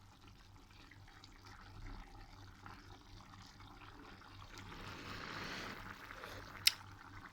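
Faint sound of cooking liquid, swelling for a second or two past the middle, with a single sharp click near the end.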